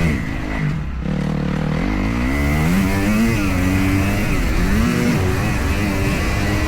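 Kawasaki KX250F four-stroke single-cylinder motocross engine revving up and down as the bike is ridden round the track. The revs drop about half a second in, then climb again, and rise and fall a few more times.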